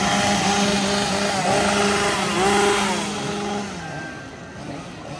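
A chainsaw engine running at high revs, held steady, with voices rising and falling in pitch over it; the engine cuts off about three and a half seconds in.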